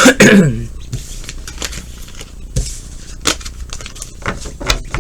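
Oracle cards being handled on a table: a few sharp taps and clicks, spaced about a second apart, as cards are shuffled and set down.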